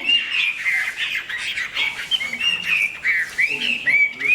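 Caged fighting songbird calling in a rapid run of short, high chirping notes, several a second.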